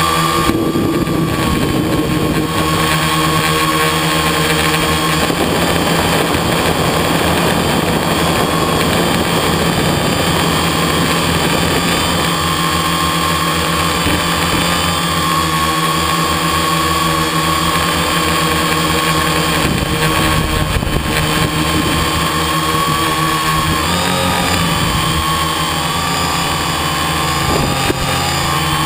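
Quadcopter's electric motors and propellers heard from its onboard camera: a steady, high droning whine that wavers slightly in pitch, with wind rushing over the microphone now and then.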